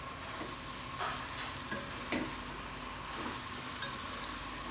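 Vegetables sizzling in hot oil in a pan while being stirred, with a few short clicks of the stirring utensil against the pan.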